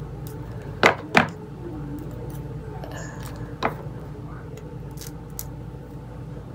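Short, sharp handling sounds from an aerosol hairspray can: two close together about a second in, then one more a few seconds later, over a steady low hum.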